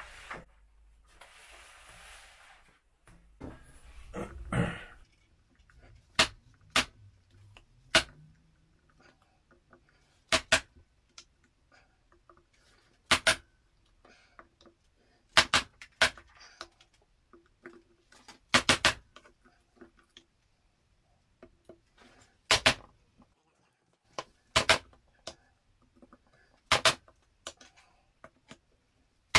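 A soft-faced mallet tapping the aluminium crankcase of a Yamaha PW80 two-stroke engine to split the two case halves. Sharp taps start about six seconds in and come singly or in quick pairs every second or two.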